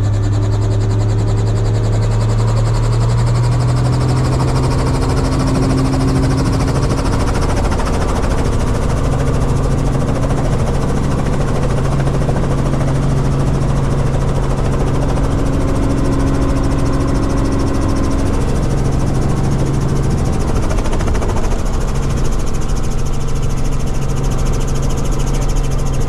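Light helicopter's engine and rotor heard from inside the cabin: a loud, steady drone that climbs a little in pitch over the first few seconds, then holds through lift-off.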